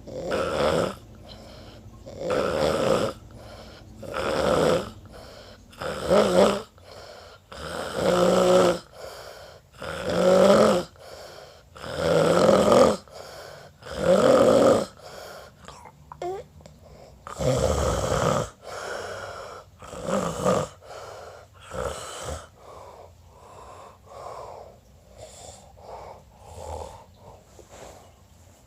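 A man snoring, a loud snore about every two seconds with a short break near the middle. In the last quarter the snores turn softer and shorter.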